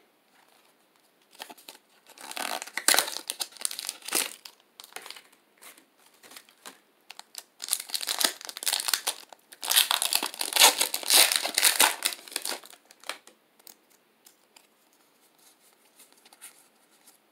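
Foil wrapper of a Pokémon trading-card booster pack being crinkled and torn open by hand, in two spells of crackling a few seconds apart. Then only faint soft clicks as the cards inside are handled.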